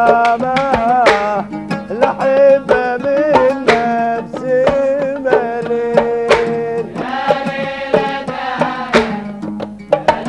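Kuwaiti sawt song: a man singing a long, ornamented melody while accompanying himself on the oud, with drum beats marking the rhythm.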